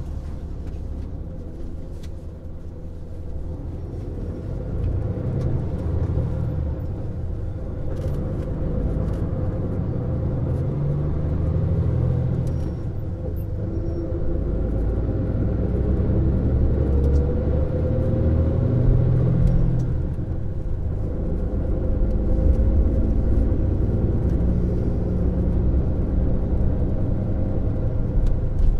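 MAN Lion's Coach running under way, its diesel engine and drivetrain giving a steady low rumble that grows gradually louder. Around the middle an engine note rises in pitch as the coach pulls harder.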